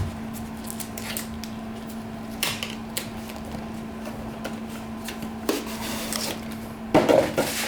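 Cardboard box of a Surface docking station being opened and handled: scattered soft knocks and rustles, with a louder burst of handling clatter near the end, over a steady low hum.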